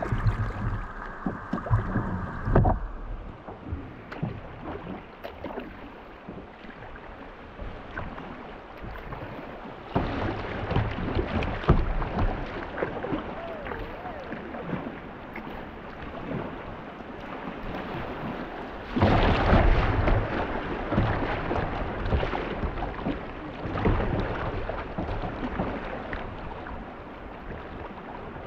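Water splashing and rushing around a kayak as it is paddled along, with no steady tone. It turns louder in two sudden steps, about a third of the way in and again past the middle.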